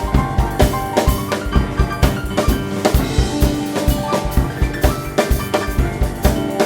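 Live instrumental music from a gugak ensemble: heavy drumming in a steady, fast beat under held melodic instrument notes.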